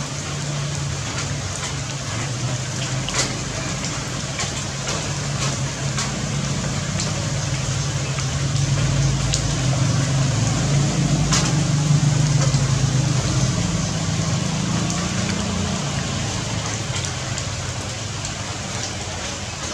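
Rain falling steadily with scattered sharp drip clicks, under a low droning hum that grows louder through the middle and then fades.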